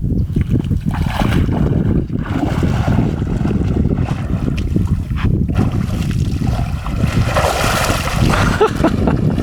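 A person swimming in a river, splashing water, with the heaviest splashing about three-quarters of the way through. Wind buffets the microphone throughout.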